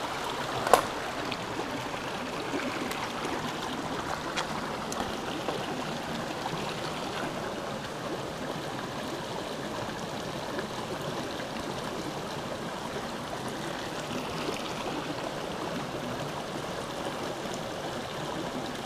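A small, shallow mountain stream running over rocks, a steady rushing babble of water. There is one sharp click less than a second in.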